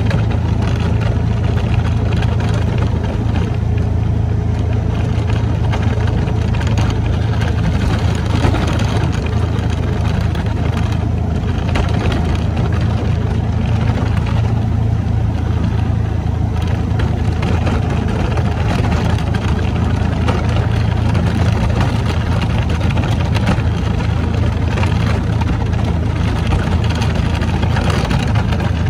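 Kawasaki Mule utility vehicle's engine running steadily at an even pace, a low constant hum, as the machine pushes its front plow blade through fresh snow.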